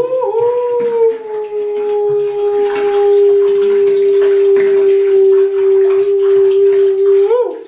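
A long howl: one voice-like tone held steady at a single pitch for about seven seconds, rising at the start and wavering just before it stops.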